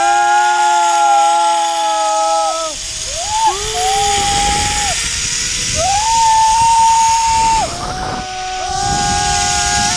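Two zipline riders yelling long, held whoops one after another as they slide down the cable, over a steady hiss of wind rush and the trolley rolling on the steel cable.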